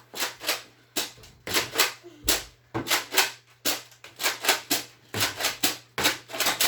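Nerf blasters clicking and snapping: a quick, uneven string of sharp clicks, about three a second.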